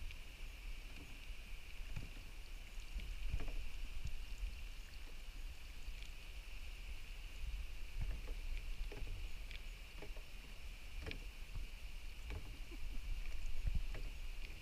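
Kayak paddling on calm lake water: scattered soft splashes and drips from the paddle blades, with small knocks against the hull, over a low steady rumble.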